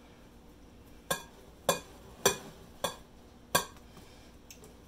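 Small wire whisk stirring dry flour mix in a glass bowl, clinking against the glass about five times, roughly every half second, starting about a second in.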